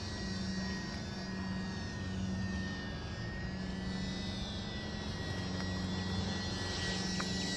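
E-flite UMX Champ S+ radio-controlled airplane in flight: its small electric motor and propeller give a steady high whine that drifts slightly in pitch, over a low steady rumble.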